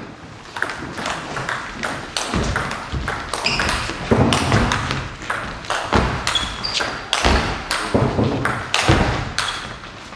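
A table tennis ball is struck back and forth with rubber-faced bats and bounces on the table in a long rally, giving a quick run of sharp ping-pong clicks. Low thuds of the players' feet on the wooden floor come in between, with a few short high shoe squeaks.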